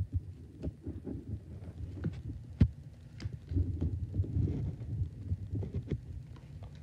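Playing cards being dealt and laid down on a pile on a mattress: irregular soft taps and card flicks over dull thumps, with one sharp slap about two and a half seconds in.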